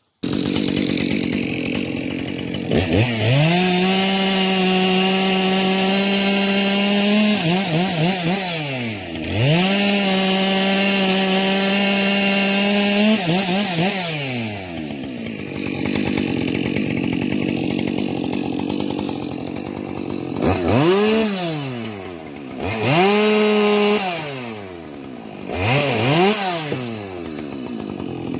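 Two-stroke chainsaw cutting firewood logs. It idles, is throttled up to full speed twice for several seconds each time, and drops back to idle between. Near the end it gives three short bursts of throttle.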